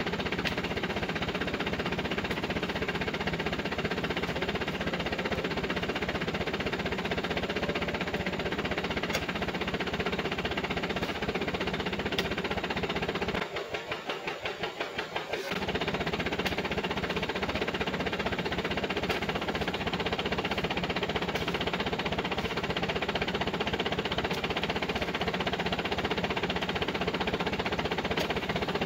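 Truck engine idling steadily with a fast, even knock. Sharp knocks come now and then as oil palm fruit bunches are pitched up onto the load with a pole.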